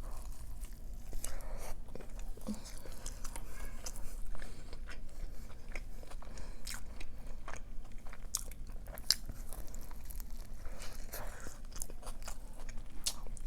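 Close-miked eating: chewing and biting of food with salsa, with many scattered crunches and wet mouth clicks.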